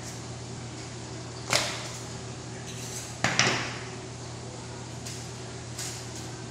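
Sharp swishing and knocking noises from a beef carcass being cut and pulled apart by hand with a butcher's knife: a loud one about a second and a half in, a double one about three and a half seconds in, and a fainter one near the end. A steady low hum from room machinery runs underneath.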